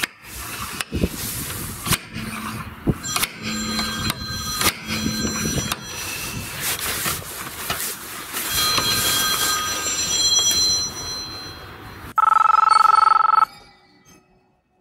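Aluminium slide hammer pulling a cold-glue tab on a car body panel: a run of sharp metallic knocks, some light taps and some harder pulls. Near the end a telephone rings once, loud and buzzing, for about a second.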